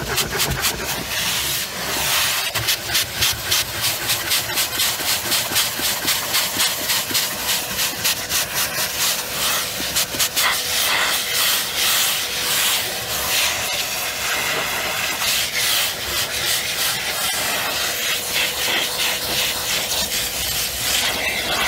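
Vacuum cleaner running, sucking through a crevice tool, its hiss rising and falling about twice a second as the nozzle is stroked back and forth over the car's fabric carpet and parcel shelf.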